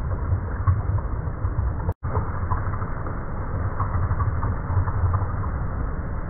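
Underwater ambience on a sandy seabed: a steady low rumble of water with scattered small clicks and ticks, broken by a brief dropout about two seconds in.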